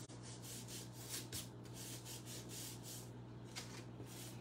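Hand rubbing and smoothing glued paper down onto a cardstock card: a run of soft, quick paper-rubbing and rustling strokes.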